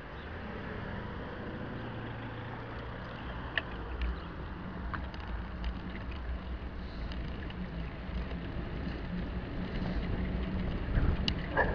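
Wind rushing over the microphone of a bicycle-mounted camera while riding, with a few faint clicks from the bike. The rush grows slightly louder toward the end.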